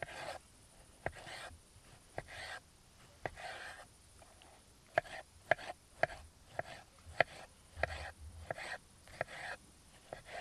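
Kitchen knife slicing a tomato on a wooden cutting board: a soft wet cut, then a sharp tap of the blade on the board, about a dozen times. The strokes come about once a second at first and about twice a second from halfway on.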